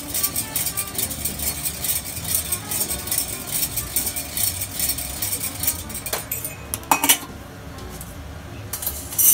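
Green coffee beans clattering against a stainless-steel roasting drum in a rapid stream of small clicks, then two sharp metal knocks about six and seven seconds in as the drum is handled.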